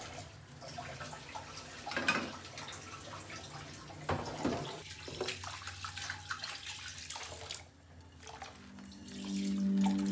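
Water poured from a bowl splashing into a frying pan in a stainless-steel kitchen sink, in a few separate splashes and trickles. Soft music with held tones fades in near the end.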